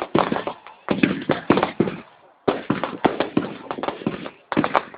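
Fireworks bursting in rapid clusters of sharp bangs, with a brief lull about two seconds in before the bangs resume.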